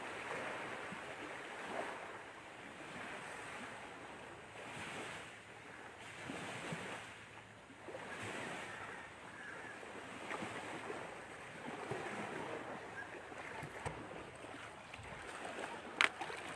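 Outdoor rushing noise that swells and fades every few seconds, with a single sharp click near the end.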